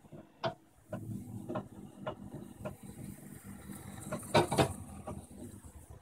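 Refrigeration compressor of an R404A circuit running with a low steady hum, a regular tick about twice a second over it. A louder clatter of clicks comes a little past the middle.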